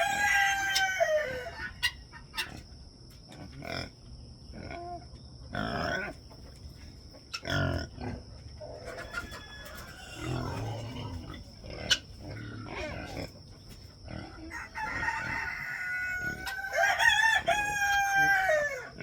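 A rooster crowing twice, once right at the start and again near the end, each crow a long call that falls in pitch at its close. Between the crows are hens clucking and a few sharp knocks.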